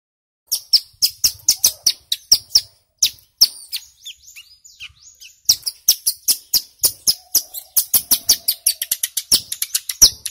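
Caged ciblek gunung (a prinia) singing a rapid run of sharp, high chipping notes, about five a second. The notes thin and soften in the middle, then come back dense and fast: the rattling "ngebren" song prized by bird keepers.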